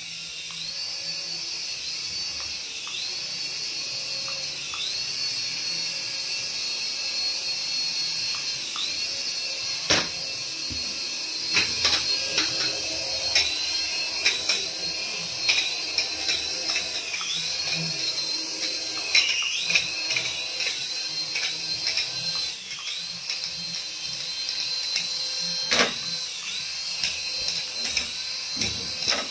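Small toy RC helicopter's electric motors and coaxial rotors whirring with a high whine that repeatedly dips and recovers as its speed changes. Several sharp knocks, loudest at about ten seconds in and near the end, as it bumps the floor and wall.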